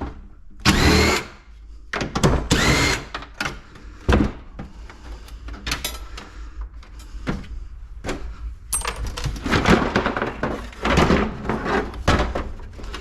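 Power drill run in two short bursts, its whine rising in pitch as it spins up, followed by irregular knocking and clattering of metal parts being handled and pulled apart.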